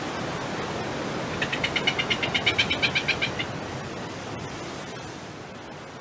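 Surf washing over rocks as a steady rush that slowly fades. About a second and a half in, a bird gives a rapid rattling call of about nine notes a second, lasting some two seconds.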